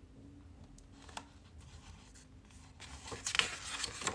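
Faint paper rustling as a page of a hardcover picture book is handled and starts to turn. The rustle builds up near the end, after a few faint clicks in the quiet before it.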